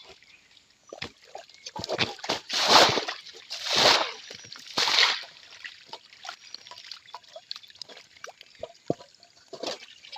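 Water splashing and sloshing, with three loud splashes about a second apart near the middle and small trickles and drips between them.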